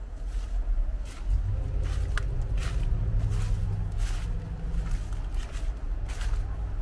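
Footsteps of someone walking at a steady pace, about two a second, over a low rumble that swells about a second in and eases after about four seconds.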